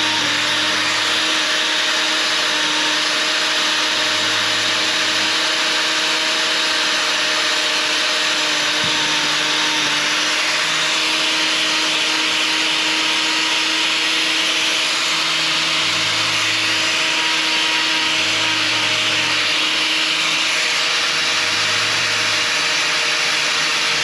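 Electric hoof-trimming grinder running and cutting into a lame dairy cow's hind claw: a steady motor whine over a harsh grinding hiss.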